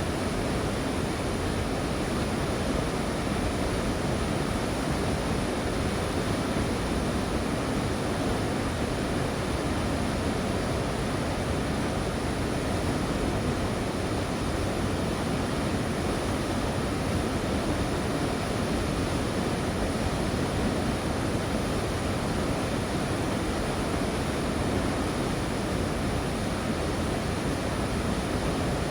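Steady, even rushing noise with no separate events, unchanging throughout.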